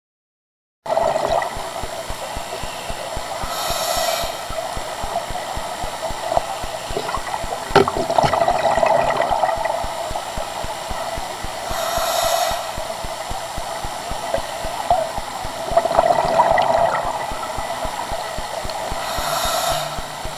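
Underwater sound from a camera among scuba divers: a steady watery rush, with a burst of regulator exhaust bubbles about every eight seconds and a sharp knock about eight seconds in.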